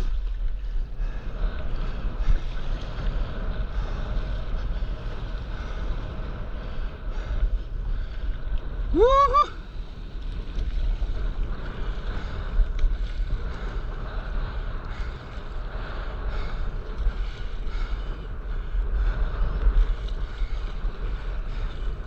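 Wind buffeting the microphone over a steady wash of choppy sea water splashing against a stand-up paddleboard. A short rising cry sounds once, about nine seconds in.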